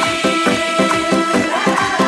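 Upbeat dance music with a fast, even percussion beat under a held melody.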